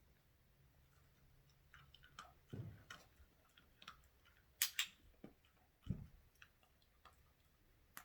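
A dog chewing quietly: scattered small crunchy clicks and a couple of soft thumps, with one sharper click a little past halfway.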